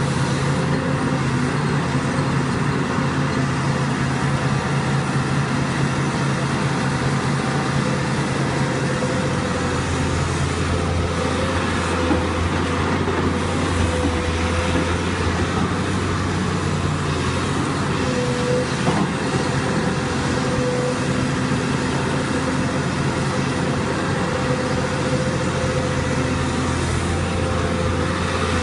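SANY crawler excavator's diesel engine running steadily under working load as it digs and swings soil into a dump truck, its low note growing heavier about nine seconds in.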